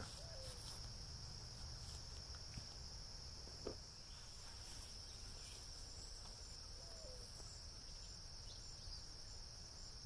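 Steady, high-pitched chorus of insects such as crickets or katydids, an unbroken trill. A single soft click sounds a little under four seconds in.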